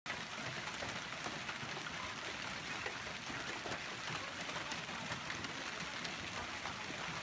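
Hail falling hard: a dense, steady patter of countless small impacts on wet ground and a car.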